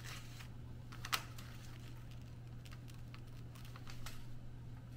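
Faint small clicks and light scratching as a razor-blade bread lame cuts score lines into the skin of a proofed sourdough loaf on parchment paper, with one sharper click about a second in.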